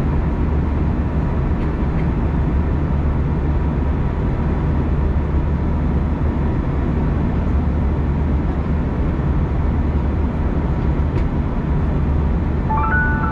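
Steady cabin noise of an Airbus A321 in flight, a low even drone from the engines and airflow. Near the end a short chime of several rising notes starts over the cabin speakers, ahead of a cabin announcement.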